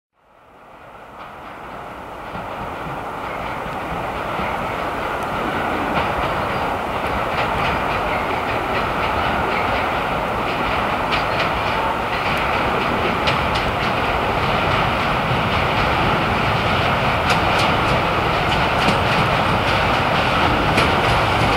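TEM2 diesel-electric locomotive hauling a train of open wagons, its diesel engine running and the wheels clicking over the rails. The sound fades in over the first few seconds, then grows steadily louder as the train approaches.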